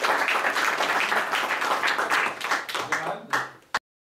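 Audience applauding, thinning out about three seconds in, then cut off abruptly.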